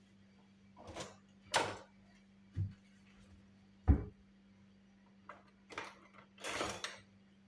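Kitchen containers and utensils being handled: a series of knocks and bumps, the loudest a low thump about four seconds in, with a short scrape near the end.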